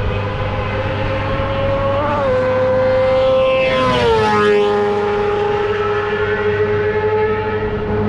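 Open-wheel single-seater racing car passing by at speed, its engine held at high, steady revs; the pitch drops sharply as it goes past about four seconds in. A steady low hum runs underneath.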